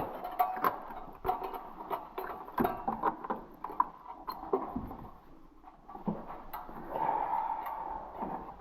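Irregular clicks, clinks and knocks of hand tools and parts being handled while spark plugs are worked out of an engine, with a rustling, scraping stretch near the end.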